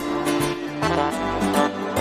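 Background music: an instrumental stretch of a pop song with guitar, bass and a steady beat.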